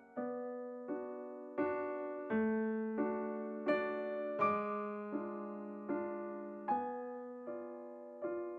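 Background piano music playing gentle sustained chords, a new chord struck roughly every three-quarters of a second and each fading slowly.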